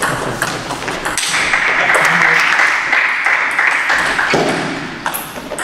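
Table tennis rally: the ball clicking off the paddles and the table in quick alternation, over a steady background noise.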